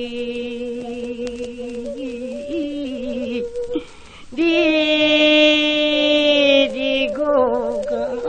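Seodo sori (western Korean folk song) sung solo on an old Victor gramophone disc recording, the voice holding long drawn-out notes. It pauses for a breath about four seconds in, then takes up a higher held note that breaks into a wavering shake near the end.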